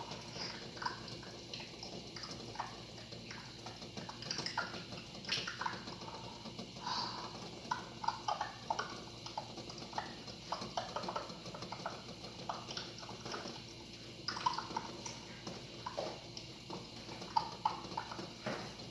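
Water boiling in a pot, with a constant irregular patter of small bubbling pops and splashes.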